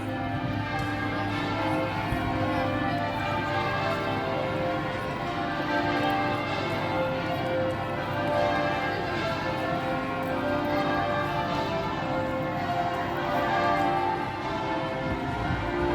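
Church bells ringing, very loud, a continuous run of overlapping bell strokes with no pause.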